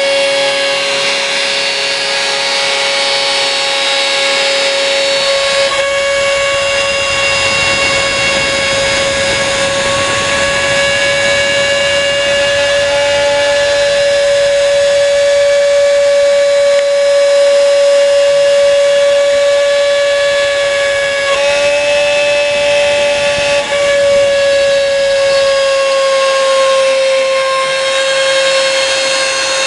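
Homemade CNC milling table engraving a printed circuit board: the machine runs with a steady high whine. A rushing cutting noise joins it about five seconds in and fades near the end, and the pitch shifts briefly about two-thirds of the way through.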